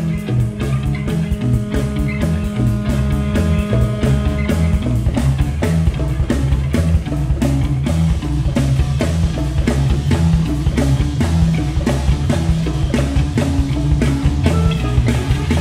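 Rock band playing: a drum kit keeps a busy, steady beat under moving bass guitar notes and guitar, with a long held note through roughly the first four seconds.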